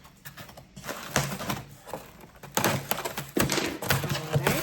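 Product box and its packaging being handled and opened: irregular crinkles, scrapes and knocks, sparse at first and busier over the second half.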